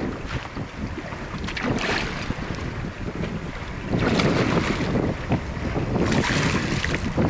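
Wind buffeting the microphone, with choppy water around a small boat. It grows louder about four seconds in and again near the end.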